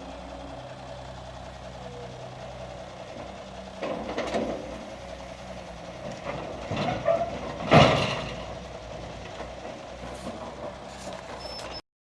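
Cat 320D excavator's diesel engine running steadily as the machine is unloaded from a transporter, with a few heavy clunks, the loudest about eight seconds in. The sound cuts off abruptly near the end.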